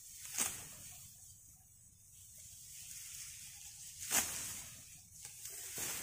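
Sickle cutting through handfuls of ripe rice stalks, with the dry stalks rustling. Two sharp slicing strokes stand out, one just after the start and one about four seconds in, with lighter cuts near the end.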